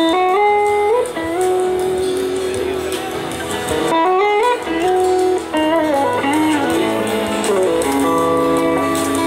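Live band playing a slow soul-blues song. An electric slide guitar lead glides smoothly between long held notes over bass, drums and keyboards.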